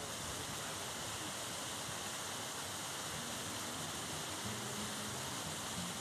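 Whitewater cascade of a mountain creek tumbling over boulders: a steady rush of water.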